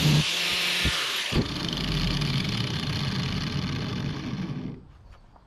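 Angle grinder with an 80-grit flap disc grinding the steel hatchet head, a loud hissing grind for about the first second and a half. It then runs on without load with a duller sound until it stops near the end.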